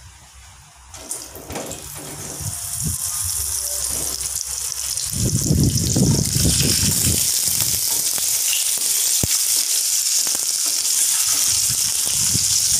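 Peeled pointed gourds (potol) laid into hot mustard oil in a kadai, the oil sizzling. The sizzle starts about two seconds in and grows loud by about five seconds, when a few soft knocks come as the gourds go in.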